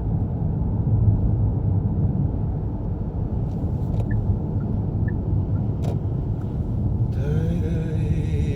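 Road noise inside a moving car: a steady low rumble of engine and tyres. About seven seconds in, a faint wavering tone joins it.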